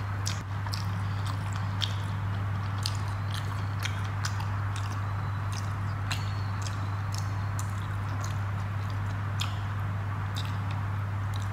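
Close-up mouth sounds of a person chewing rice and fish curry: scattered sharp wet clicks and lip smacks, over a steady low hum.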